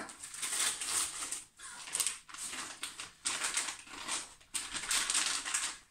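Plastic food packets crinkling and rustling as they are handled, in a run of uneven crackly bursts with short pauses between.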